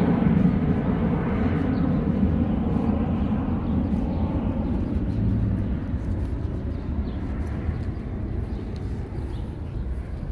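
A low, steady engine rumble that slowly fades away over several seconds.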